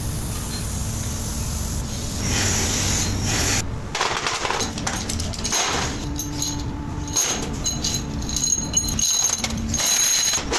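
Factory machinery noise with clatter and knocks of metal parts, changing abruptly a few times as the machines shift.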